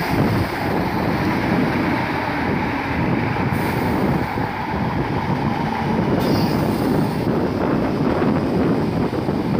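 Class 315 electric multiple unit running along the platform: a steady rumble of wheels on rail, with a short hiss twice, around four and six seconds in.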